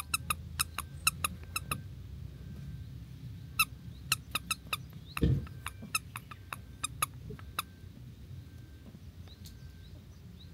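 A string of sharp, irregular clicks, two or three a second, over a low steady background hum, with one heavier thump about five seconds in; the clicks stop after about seven and a half seconds.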